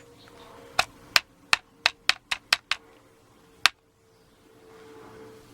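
About nine light, sharp clicks of small metal lock parts (pins and tools) being handled on a bench, irregularly spaced over about three seconds, then stopping.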